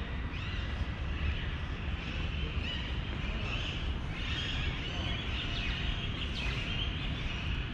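Small birds chirping and calling repeatedly, busiest in the middle and later part, over a steady low background rumble.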